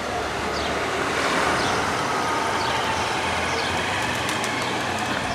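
Steady outdoor street ambience: a rumble of traffic, with short high chirps of birds repeating over it.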